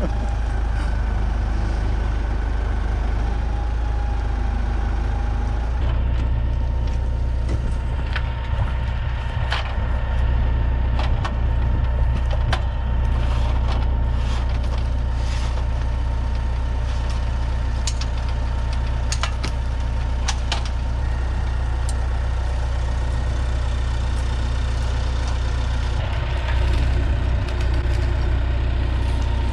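A heavy engine idling steadily, with scattered sharp clicks and cracks over it in the middle of the stretch.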